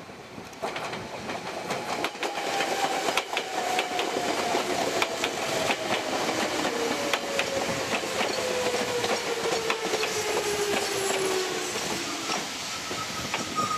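Meitetsu 7000 series Panorama Car electric train running in alongside the platform. Its wheels click over the rail joints, and a motor whine falls steadily in pitch as the train slows.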